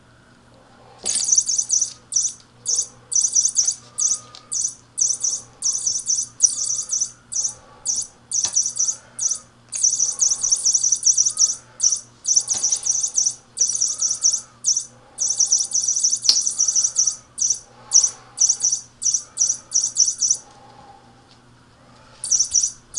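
Feather wand cat toy giving off high bird-like chirping in quick bursts as it is waved, stopping for about a second at the start and for a couple of seconds near the end. A few sharp taps sound among the chirps.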